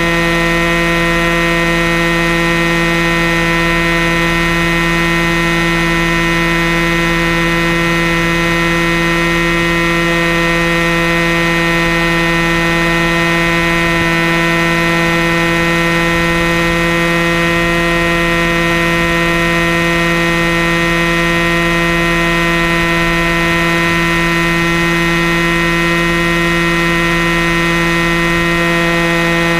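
Airstar Mongoose RC helicopter running, heard up close from a camera mounted on its own airframe: its motor, drive and main rotor make a loud, steady whine with many overtones, holding one pitch throughout.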